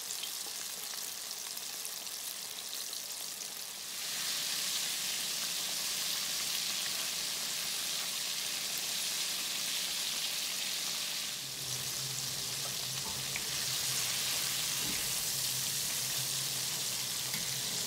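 Flour-coated chicken tenders deep-frying in hot oil in a pan: a steady sizzle that gets louder about four seconds in.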